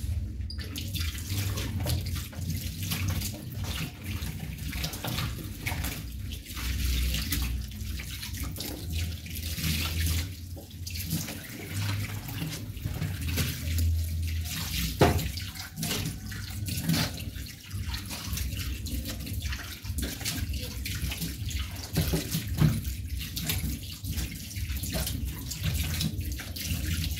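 Tap water running and splashing into a stainless steel kitchen sink while the basin is scrubbed with soapy water and hands are washed and rinsed, with a sharp knock against the metal about halfway through.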